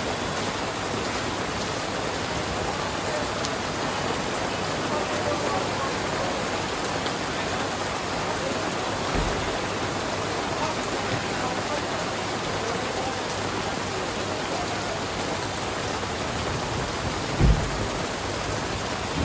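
Steady rain falling, an even hiss of drops on surfaces. A short low thump about halfway through and a louder one near the end.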